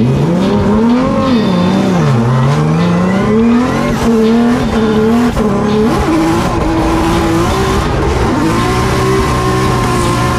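A 1200 hp Nissan 370Z drift car's engine, heard from inside the cockpit, revving up and down as the car drifts, over tire squeal. The revs rise and fall sharply at the start, dip about two seconds in, climb steadily, then hold steadier in the second half.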